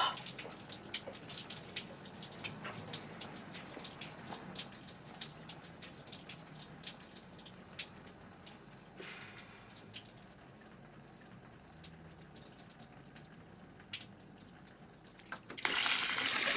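Water dripping, with many small irregular drips over a quiet background, in a flooding flat. Near the end a loud rush of running water starts suddenly.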